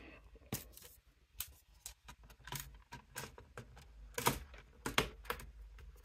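Dell Precision 3470 laptop's bottom cover being fitted back onto the chassis: a scattered series of sharp clicks and taps as it is set down and its edges are pressed so the clips snap in, the loudest about four and five seconds in.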